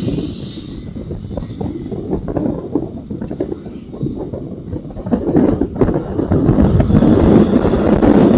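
Small sport motorcycle running, its exhaust rumble mixed with wind buffeting on an action camera's microphone; it dies down about a second in and picks up again about five seconds in.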